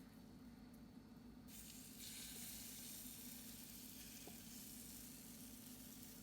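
Chaffle batter of egg and shredded mozzarella sizzling faintly in a Dash mini waffle iron. The steady hiss comes in about a second and a half in.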